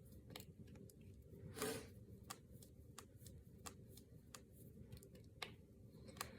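Finger joints and knuckles being cracked: a run of faint, sharp pops coming at irregular intervals, well over a dozen in all.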